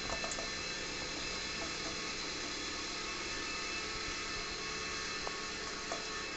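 A steel ladle spooning curry into a stainless-steel bowl, with a few light clinks of metal on metal over a steady background hiss.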